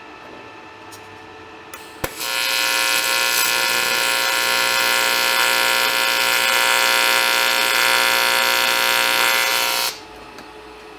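A power tool starts with a click about two seconds in, runs loud and steady at an even pitch for about eight seconds, and cuts off abruptly near the end.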